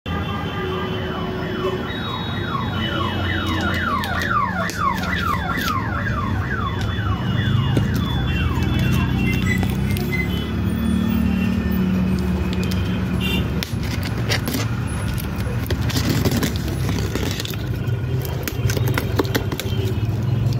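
An alarm sounding as a rapid string of falling-pitch sweeps, about three a second, starting about a second and a half in and stopping about halfway through, over a steady low rumble. A run of clicks and knocks follows near the end.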